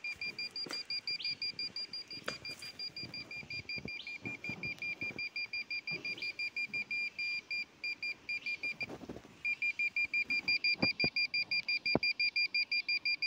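Satellite meter beeping rapidly, a high pulsed tone about five times a second, the signal beep of a meter locked onto a satellite while the LNB is aligned. The beeping stops briefly about two-thirds of the way through and comes back louder, with a few light knocks from handling.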